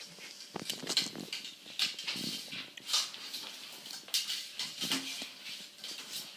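A cat playing with a straw, batting and pouncing on it: irregular scuffs, rustles and taps, one or two a second.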